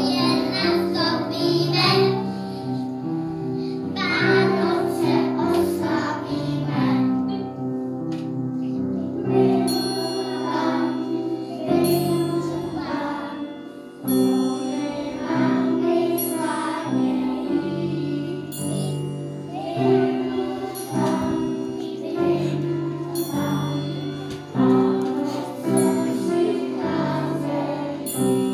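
A group of young children singing an action song together over an instrumental accompaniment of steady held notes. A bright tinkling joins about ten seconds in and recurs through the rest of the song.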